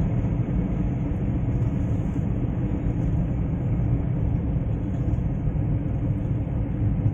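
Steady road and engine rumble heard from inside a moving car.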